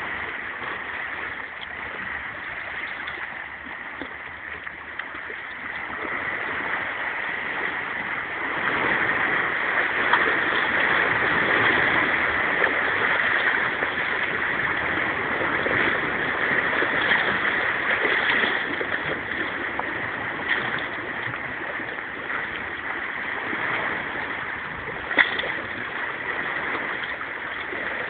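Small sea waves lapping and splashing among shoreline rocks, a steady watery wash that grows louder for a stretch in the middle. There is a single brief click near the end.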